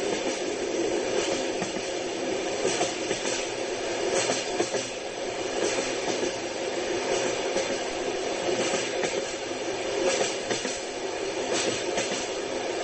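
Train running on rails: a steady rumble of the wheels on the track, with a few faint knocks as they pass over rail joints.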